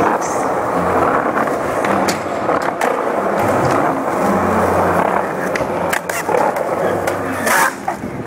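Skateboard wheels rolling on smooth concrete paving, with a few sharp clacks of the board, the loudest near the end.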